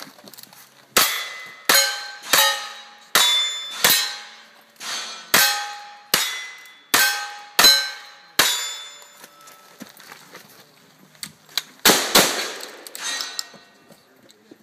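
A fast string of about ten gunshots, one every two-thirds of a second or so, each followed by the ringing clang of a hit steel target. After a pause of a few seconds come two more heavy shots close together near the end, also ringing on steel.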